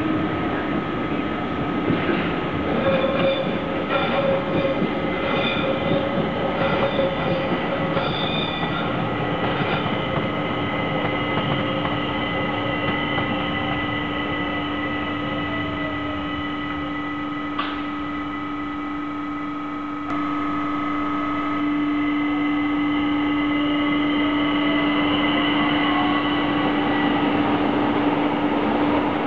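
A red ÖBB electric locomotive passes on the line with a steady whine and a rhythmic clatter of wheels over the rails, about once a second for the first ten seconds. After a sudden step up in level, an ÖBB S-Bahn electric multiple unit comes in, its electric drive whining in gliding tones.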